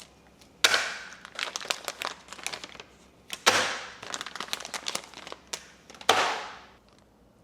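Plastic packaging crinkling and rustling as it is handled, with three louder rustles about half a second, three and a half, and six seconds in, and small crackles between them.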